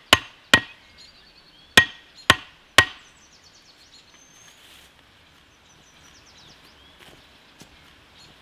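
Hatchet hammering a wooden stake into the ground: five sharp knocks with a short ring, two and then three, the last about three seconds in.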